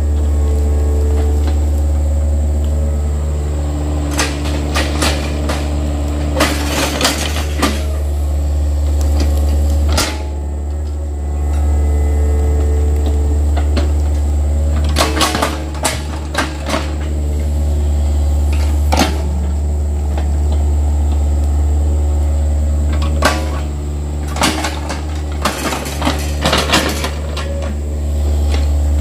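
Yanmar mini excavator's diesel engine running steadily with a low drone and higher tones that come and go as it works, while the bucket digs into soil and roots, with several clusters of metallic clanks and knocks.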